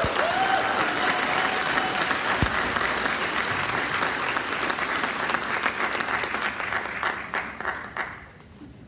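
Audience applauding, with a couple of short rising-then-falling cheering whoops near the start; the applause fades out about eight seconds in.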